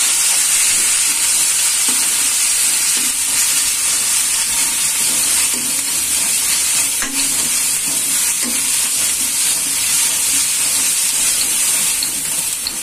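Onions with ginger-garlic and cumin paste sizzling steadily in hot oil in a metal kadai, stirred and scraped with a metal ladle.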